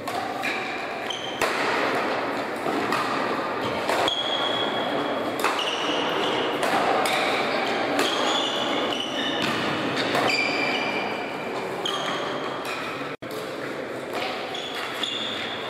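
Badminton play in a large, echoing sports hall: repeated sharp racket strikes on the shuttlecock and short, high squeaks of sneakers on the court floor, with voices in the background.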